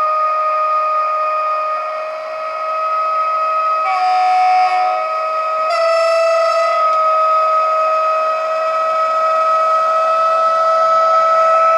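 Model Taurus electric locomotive's factory-fitted DCC sound decoder playing through upgraded bass-enhanced speakers: a steady electric traction whine slowly rising in pitch as the loco runs, with two short horn blasts about four and six seconds in.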